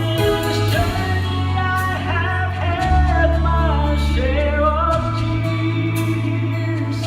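A vocal quartet singing in harmony over long held bass notes.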